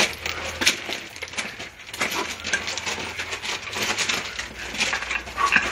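Feet scuffing and crunching on loose gravel, a run of scattered sharp clicks and taps.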